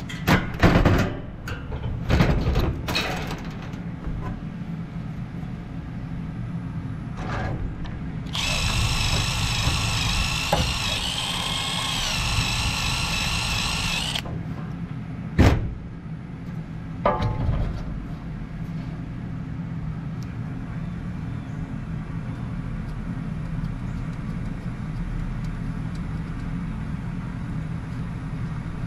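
Red cordless Milwaukee M12 driver running for about six seconds with a steady high whine, turning the set screw on a condenser fan blade hub. It comes after a few clunks of metal parts being handled, and is followed by a sharp knock and a short clatter.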